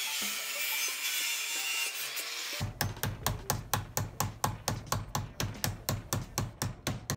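Flexible corrugated metal exhaust pipe being cut by hand with a saw while clamped in a bench vise. A steady scraping hiss gives way, about two and a half seconds in, to quick, even saw strokes at about five a second.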